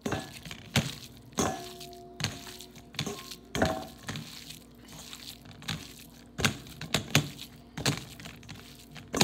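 Stainless steel mixing bowl knocked and jostled by a hand kneading ground turkey in it: a sharp knock every second or so, some leaving a short metallic ring.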